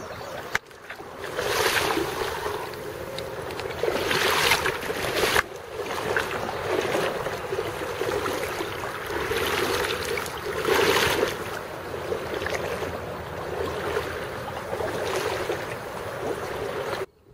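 Rushing river water mixed with wind buffeting the microphone, swelling and easing every few seconds, then cutting off suddenly near the end.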